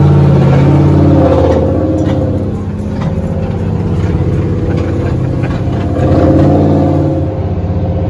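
Engine of a monster truck ride vehicle running under load, heard from the open passenger seats. It swells louder near the start and again about six seconds in, easing off in between.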